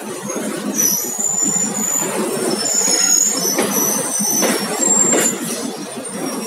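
Passenger train running on the rails with a steady rattling rumble, overlaid from about a second in by intermittent high-pitched metallic squeals of steel wheels on rail, and a few short knocks in the second half.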